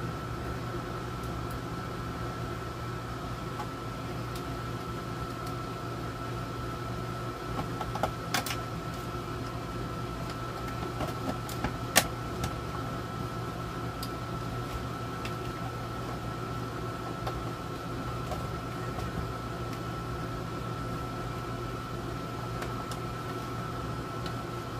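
Steady hum of a room air conditioner running, with a faint constant whine over it. A few light clicks and knocks from the radio chassis and tools being handled, the sharpest about halfway through.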